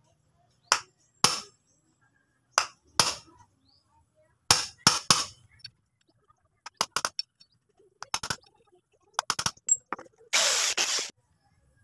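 Hammer tapping a punch against a rivet on a Yamaha Sniper 150 clutch housing, about a dozen sharp metal clinks, often in quick pairs, marking the rivet for drilling. Near the end a rough burst of noise lasts about a second.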